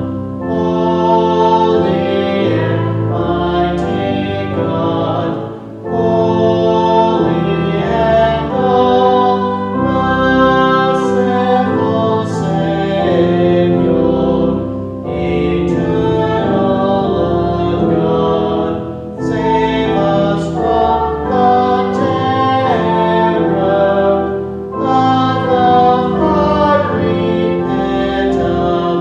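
A hymn sung by a choir, in sustained phrases broken by short pauses about every five seconds.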